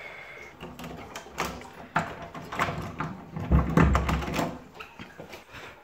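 Loose ceramic doorknob and its metal spindle being handled and refitted on a wooden door: a run of clicks, taps and rattles, with a louder, heavier stretch of knocking lasting about a second a little past halfway.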